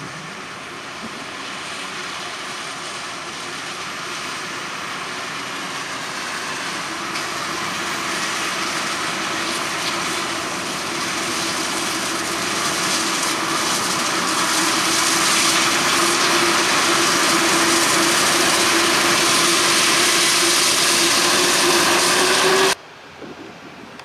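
Krone BiG X 1180 self-propelled forage harvester chopping maize, with a tractor and trailer running alongside: a loud, even rushing noise over a steady hum, growing louder as the machines come closer. It cuts off suddenly near the end, leaving a much quieter machine sound.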